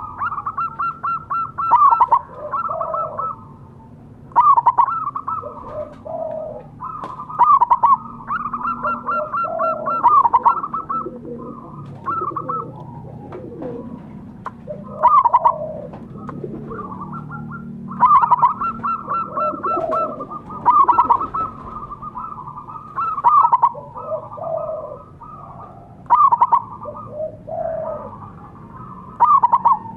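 Zebra dove (perkutut) cooing: rapid runs of short staccato coos, a new phrase every two to three seconds, with softer, lower coos in between.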